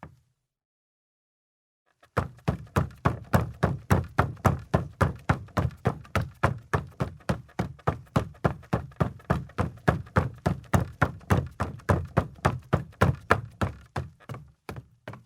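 Footsteps on a wooden floor at a quick, even pace, about four steps a second, starting about two seconds in and easing off near the end.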